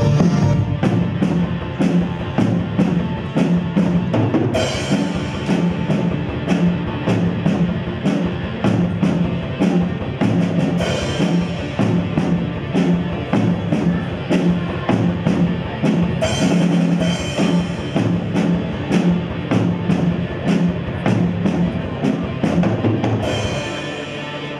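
Live rock band playing: a drum kit keeps a steady beat of about two hits a second over electric guitar and keyboard. The music drops in level near the end.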